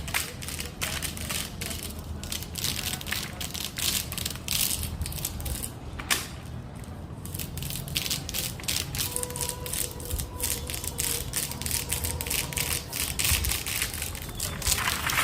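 A large rubber band ball being cut open, its stretched rubber bands snapping apart in a rapid, irregular run of sharp clicks and crackles.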